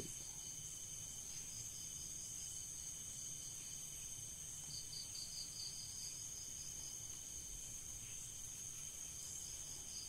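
Crickets chirping in the background: a steady high trill with pulsed chirping that comes up around the middle and again near the end, over a faint low hum.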